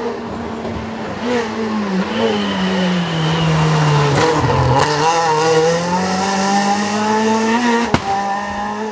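A Renault Clio rally car's engine racing past at close range. Its note falls as the car approaches and goes by, then climbs as it accelerates away. There is a single sharp crack near the end.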